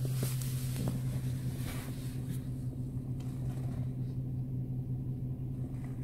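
Car engine idling, heard from inside the cabin: a steady low hum with a few faint small clicks.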